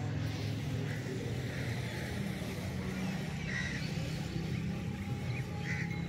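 Steady low hum of an engine or motor running, with a few faint short calls over it.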